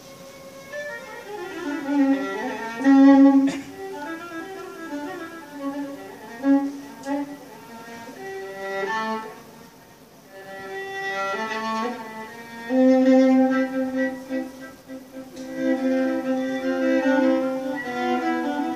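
A solo violin played live, a quick melodic line that changes note rapidly. About two-thirds of the way in, it settles on a long held low note while other notes move above it.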